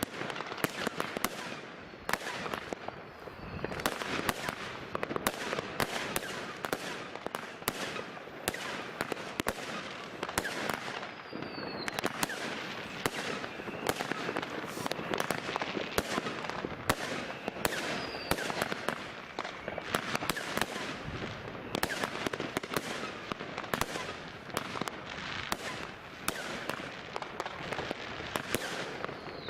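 A continuous barrage of fireworks: firecrackers and rockets banging and crackling in quick succession, with a couple of short falling whistles.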